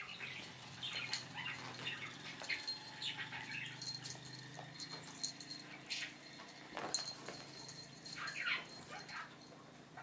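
Small fluffy puppy whining in many short, high-pitched cries, with a few sharper louder ones about six and seven seconds in, as it tries to reach a cat up on the sofa.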